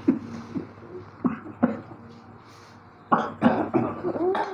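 A man coughing in short hacking bursts, a few spaced coughs at first and then a louder run of them from about three seconds in, brought on by inhaling spice smoke.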